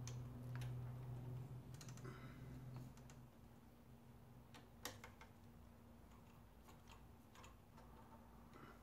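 Faint, scattered clicks and light taps of small parts being handled as a throttle position sensor is fitted to a throttle body, the sharpest tap about five seconds in. A low hum sits under the first three seconds.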